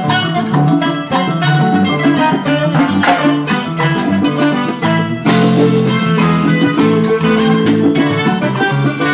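Live salsa band playing, with a steady rhythmic beat; the band swells louder about five seconds in.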